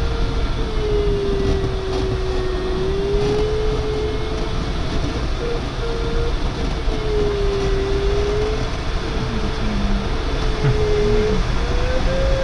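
Steady airflow noise in a DG505 glider's cockpit, with the electronic variometer's single tone sliding slowly up and down in pitch and breaking briefly now and then as the rate of climb or sink changes.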